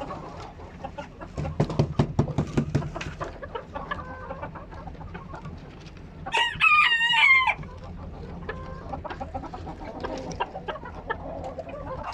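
Chickens clucking, with a rooster crowing once about halfway through, a wavering call a little over a second long and the loudest sound.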